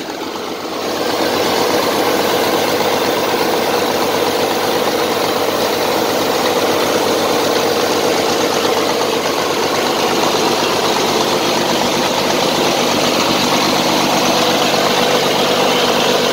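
Volvo TD122F turbocharged inline-six diesel running at raised revs. The sound builds up over the first second or so, then holds a steady, even note.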